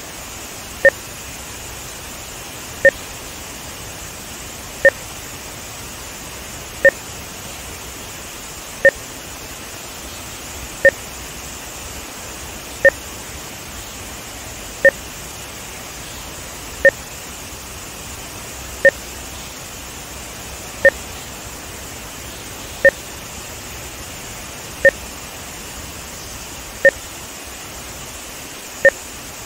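Short electronic test beeps, each a two-tone blip, come once every two seconds, fifteen in all, over a steady rushing noise. They are audio sync markers laid into a video instrumented for measuring audio-video timing.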